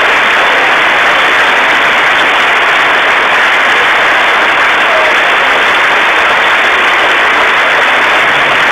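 Crowd applauding: steady, dense clapping, loud, with hands clapping close by.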